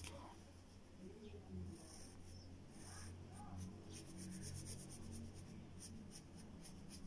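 Pencil lead scratching on paper in runs of short, quick shading strokes, faint, over a low steady hum.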